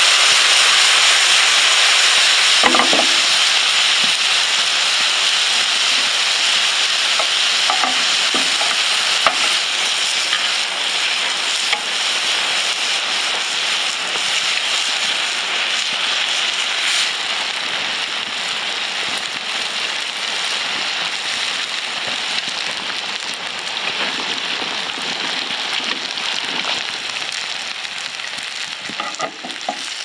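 Glazed chicken pieces sizzling in a hot cast-iron grill pan over a fire: a steady hiss that slowly dies down, with a few light knocks near the start and end.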